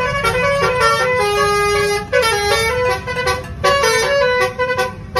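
Bus telolet horn of the Basuri multi-tone kind playing a tune of short stepped notes, with one longer held note, over a low rumble that fades after about two seconds.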